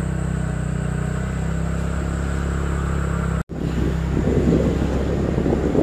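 Motor vehicle engine running steadily, a low even hum. After a brief break a little past halfway, a rougher, busier sound joins in above the hum.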